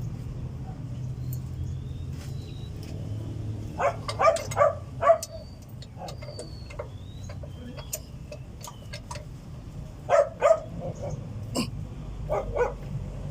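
A dog barking in short bursts over a steady low hum: a cluster of barks about four seconds in, and a couple more about ten seconds in and again near the end.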